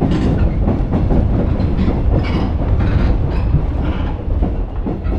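Electric commuter train running along jointed track and over points: a steady low rumble with irregular clatter of the wheels over rail joints, heard from inside the driver's cab.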